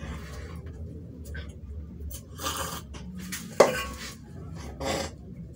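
A stainless steel bowl and a plastic cup being handled during a meal: light scraping and knocking, with one sharp clink on the bowl about three and a half seconds in, the loudest sound, and another knock near the end.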